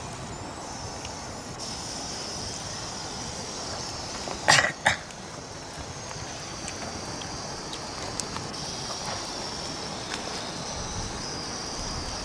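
Outdoor ambience with a steady high-pitched hiss, broken about four and a half seconds in by two short, loud sounds close together.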